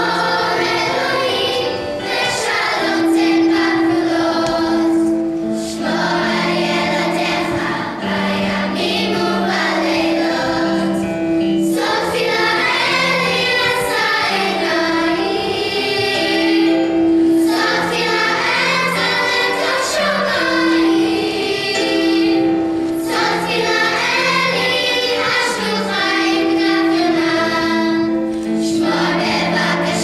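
Children's choir singing a song in long phrases, with short breaks between them.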